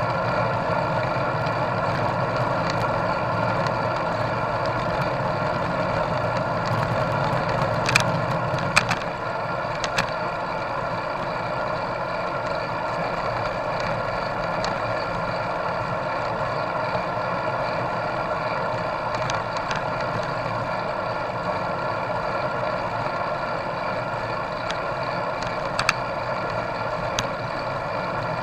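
Steady rumble of riding noise, tyres on asphalt and wind, picked up by a handlebar-mounted camera, with a few sharp knocks from bumps or the mount, two close together about eight seconds in and one more near the end.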